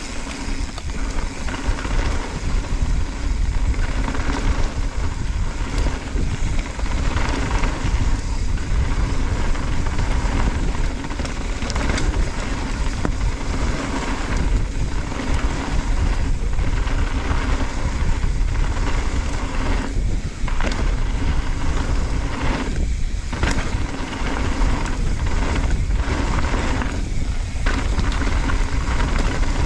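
Mountain bike riding fast down a loose gravel-and-dirt trail: tyres rolling and crunching over stones, with heavy wind noise on the camera's microphone, a few sharp knocks and brief dips over bumps.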